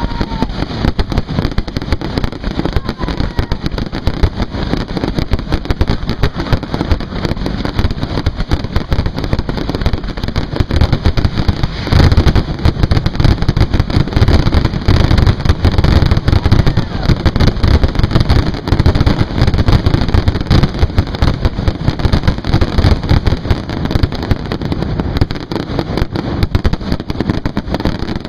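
Fireworks finale barrage at close range: a dense, continuous rapid-fire run of shell launches and bursts, heaviest about halfway through and thinning out near the end.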